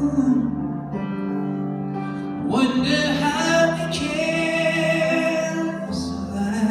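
Live ballad performance heard from the audience: a male voice holding long sung notes over instrumental accompaniment.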